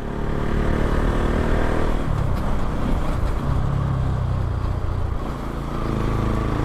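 Bajaj Pulsar NS200's single-cylinder engine running through an Akrapovic exhaust fitted with a dB killer, with a bassy, not-too-loud note. The engine note shifts about two seconds in and again around five seconds.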